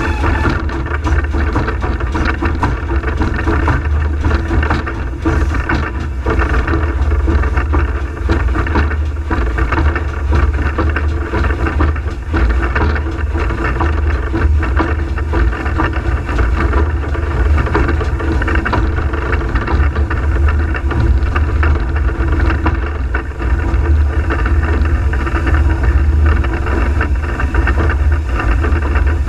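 Footplate noise of the Peckett & Sons industrial steam tank locomotive Ashington No.5 working under steam: a loud, steady rumble with the clatter of the running engine.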